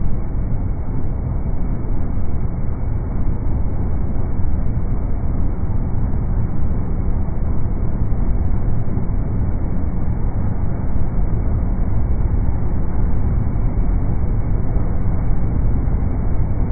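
Class 37 diesel locomotive's English Electric engine idling with a steady low rumble.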